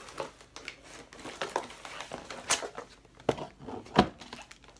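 Toy packaging being handled: crinkling rustles with a few sharp clicks and knocks, the loudest about four seconds in.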